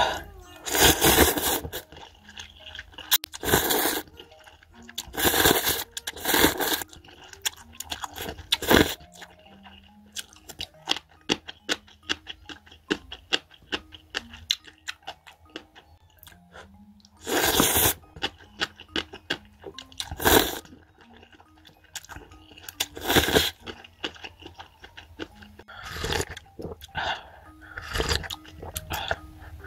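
Someone eating cup ramen: about ten long slurps of instant noodles, with small chewing clicks between them and a longer chewing stretch in the middle. Near the end the broth is sipped straight from the bowl. Light background music runs underneath.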